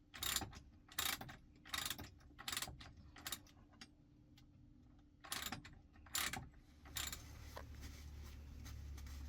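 Hand ratchet wrench clicking in repeated short strokes, about one stroke every three-quarters of a second, with a pause midway, as a bolt on the exhaust riser's support brace is loosened. A steady low hum comes in near the end.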